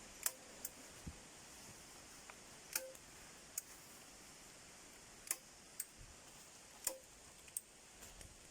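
Manual staple gun firing staples to fix plastic film and insulation to a log wall: about eight sharp clicks at irregular intervals, a few with a short metallic ring.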